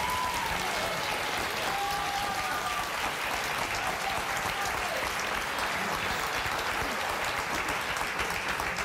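Studio audience applauding steadily, with a few drawn-out voices calling out over the clapping in the first half.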